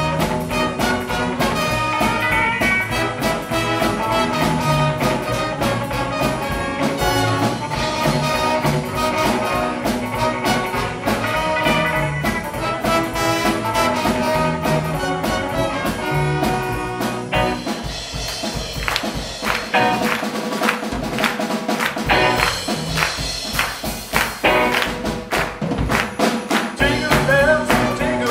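Live rockabilly swing band playing an instrumental passage: a horn section of trumpet, trombone and saxophone over upright bass, electric guitars and drums. A bit past halfway the sustained horn lines thin out and sharp drum hits with short stops in the bass take over.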